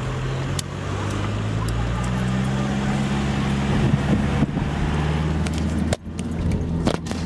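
Car engine heard from inside the cabin as the car drives off, its note rising as it speeds up, then falling back and running steadily. A few sharp clicks sound near the end.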